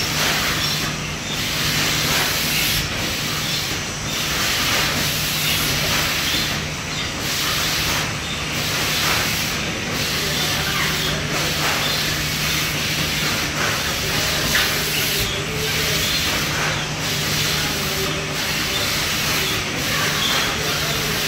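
Steady running noise of a piadina stacking line, delta pick-and-place robots and conveyor belts at work: a constant hiss with a low hum underneath.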